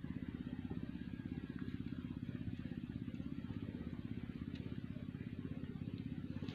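A small engine running steadily at idle, with a fast, even beat.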